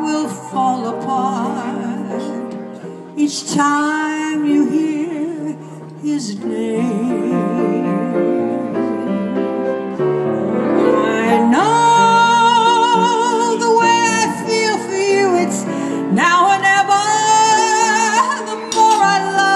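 A woman singing a ballad with piano accompaniment, holding long notes with vibrato.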